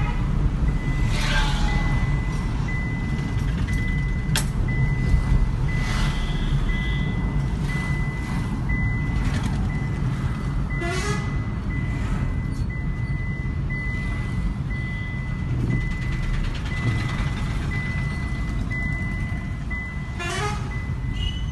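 Street traffic heard from inside a moving car: a steady low road and engine rumble, with vehicle horns honking a few times. A high beep repeats evenly throughout.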